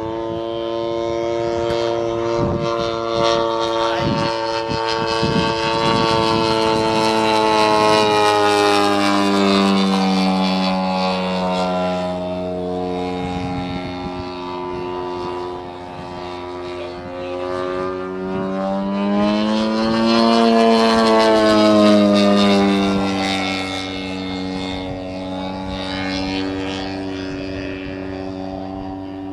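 Engine and propeller of a one-third-scale Waco YMF-5 radio-controlled biplane droning steadily as it flies aerobatics. The pitch sinks about ten seconds in, then rises and falls again a little after twenty seconds, as the plane climbs, dives and passes. It is loudest around eight and twenty-one seconds in.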